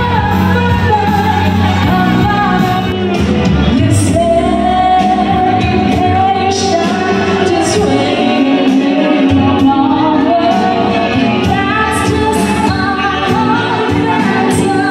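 A woman singing into a microphone over a backing track, played through a PA sound system in a large hall.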